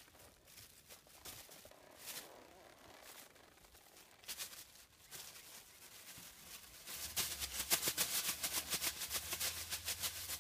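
Plastic bag rustling, with scattered light rustles at first, then a dense, rapid crackling from about seven seconds in as it flaps in the air overhead, with wind rumbling on the microphone.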